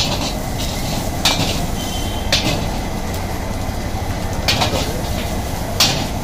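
Metal ladle clanging and scraping against a steel wok as noodles are stir-fried, about five sharp clangs spread a second or so apart, over a steady low rumble.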